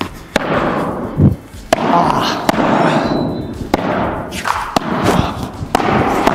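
Padel rally: the ball struck back and forth with rackets, a sharp pop about once a second, with a duller thud about a second in.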